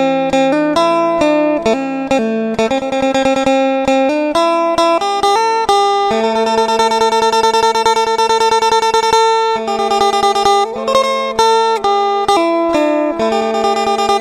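Isan phin (plucked lute) music: a fast, densely picked melody over a steady drone.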